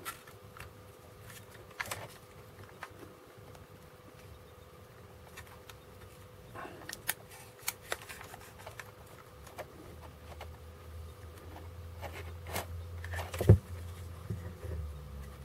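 Scattered light clicks and taps of hard plastic parts being handled and pushed together as a desoldering gun's clear solder tube, with its spring, is refitted into the gun body. The loudest, sharpest click comes near the end.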